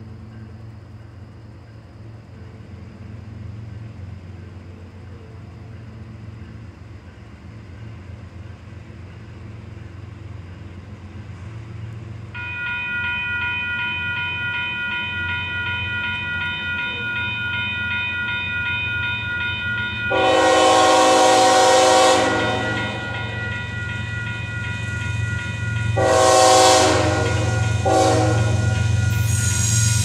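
Union Pacific diesel locomotive approaching, its low rumble growing louder. From about a third in, a steady high multi-note tone sounds. From about two-thirds in, the locomotive's horn blows the grade-crossing pattern: long, long, short, long.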